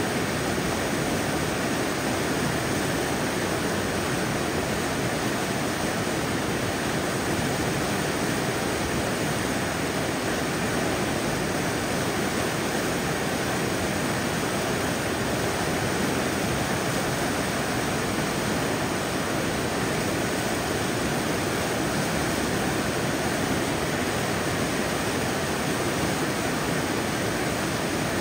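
Whitewater river rushing over boulders in rapids, with a waterfall pouring into it: a steady, unbroken rush of water.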